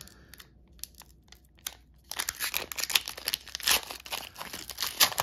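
Foil hockey card pack wrapper being torn open by hand: a few faint crackles, then from about two seconds in a dense run of crinkling and tearing of the wrapper.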